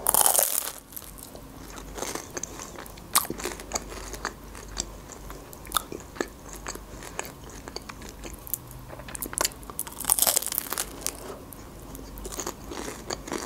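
Biting into and chewing a McDonald's blackcurrant pie, its crisp pastry crust crunching. There is a loud crunchy bite at the start and another about ten seconds in, with small crackles of chewing between them.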